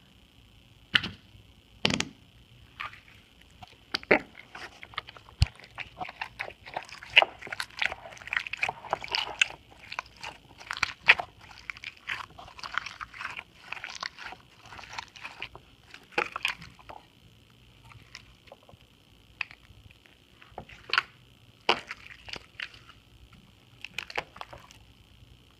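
Slime squeezed and pressed by hand to make fart noises: irregular wet squelches and pops, thickest in the middle and sparser near the end. A steady high-pitched tone from a poor microphone runs underneath.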